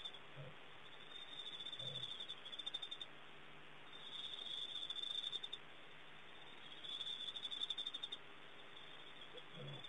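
Faint insect ambience: three high, finely pulsed trills of one to two seconds each, about three seconds apart, with a few short low calls near the start and near the end.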